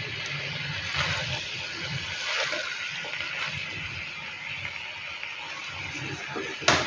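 Silicone spatula stirring and tossing macaroni and vegetables in a non-stick wok: a steady rustling scrape of food against the pan over a low hum, with a sharp click near the end.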